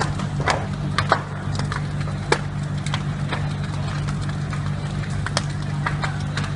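A large fire burning, crackling and popping with irregular sharp cracks, over a steady low hum.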